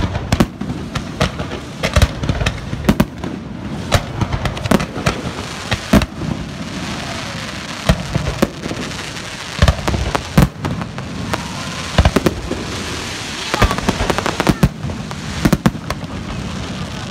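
Aerial fireworks display: a rapid, irregular series of launch thumps and shell bursts, with a stretch of dense crackling about two thirds through.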